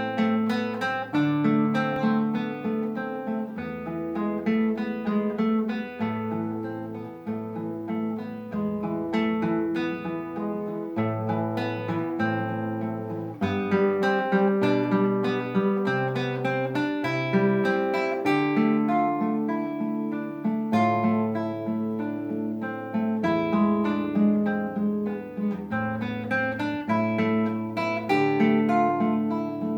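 Solo classical guitar playing an étude: a steady flow of plucked arpeggiated notes over bass notes that change every couple of seconds.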